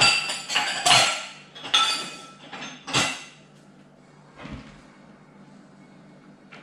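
Ice cubes clinking against a drinking glass: a quick run of sharp, ringing clinks in the first three seconds, then one fainter knock a little later.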